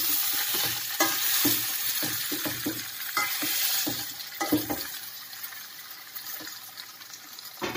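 Steel spoon stirring and scraping drumstick pieces, tomatoes and masala in a stainless steel pan, with irregular clinks and scrapes, while the masala sizzles. The sizzle is loudest in the first few seconds and dies down after about four seconds.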